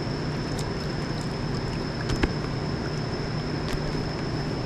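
Steady rush of a river flowing over a rocky bed, with a thin high steady whine above it and a few faint clicks, the loudest a little past two seconds in.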